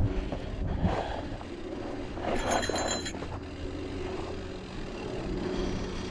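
Trek Roscoe 8 mountain bike rolling along a dirt trail: steady tyre and drivetrain rumble, with a brief sharp rattle of the bike about two and a half seconds in.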